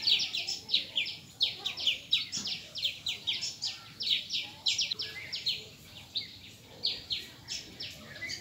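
Rapid, high-pitched chirping calls: many short notes, each falling in pitch, several a second in uneven runs.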